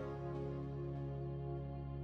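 Slow background music: one long, held chord that stays steady.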